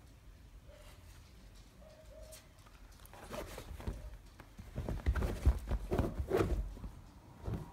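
Rustling and scuffling as a Sphynx kitten and an American hairless terrier wrestle on a fabric couch, with some low thumps; it starts a few seconds in and is loudest just past the middle.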